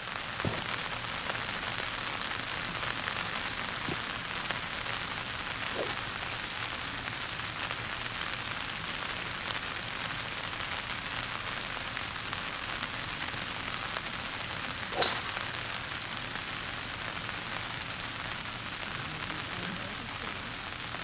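Steady rain falling, with one sharp crack of a driver striking a golf ball off the tee about three-quarters of the way through.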